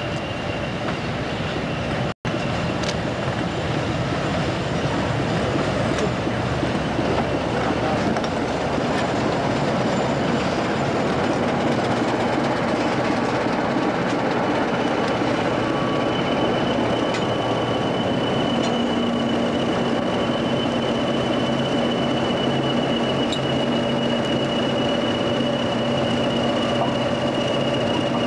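A preserved British Rail Class 20 and Class 25 diesel locomotive running light past at slow speed, their English Electric and Sulzer diesel engines running. A steady high-pitched squeal, typical of wheel flanges on a curve, grows stronger about halfway through.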